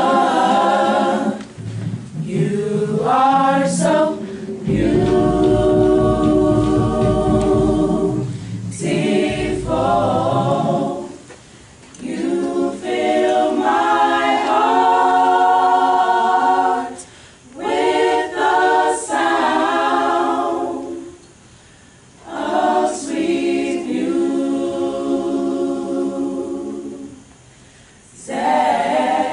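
A small group of voices singing a chapter hymn a cappella in unison and chords, holding long notes in slow phrases with short breaks between them. A low rumble runs under one of the early phrases.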